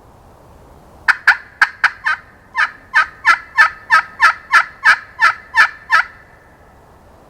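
Slate turkey call run as a long, loud series of hen yelps: about sixteen notes over five seconds, settling into roughly three a second, each note dropping in pitch. It is a locating call meant to make a distant gobbler answer.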